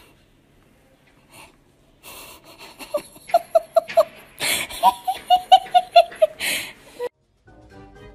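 High-pitched human laughter in two runs of quick, evenly spaced 'ha-ha-ha' pulses, starting about two seconds in and cutting off about seven seconds in.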